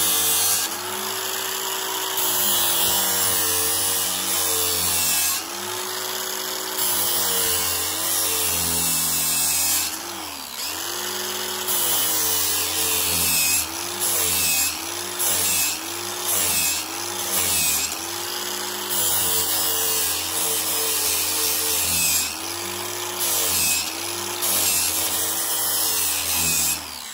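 Power tool running in an American Sharpener Model 5005 jig, grinding the edge of a steel mulching mower blade in repeated passes. The motor's pitch and level rise and fall with each stroke, about one stroke a second in the middle stretch, over a steady grinding hiss.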